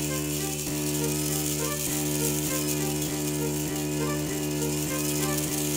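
Small geared drive motor of a 3D-printed hubless RC bike, an MG90S servo modified for continuous rotation, running at a steady speed and turning the toothed wheel ring: a steady whine with a faint tick about every two-thirds of a second.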